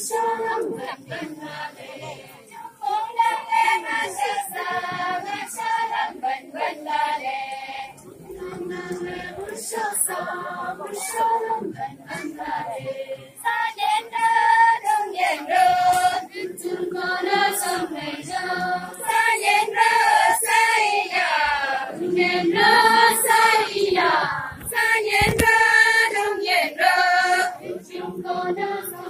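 A group of women's voices singing a Tangsa Naga traditional dance song together in short repeated phrases.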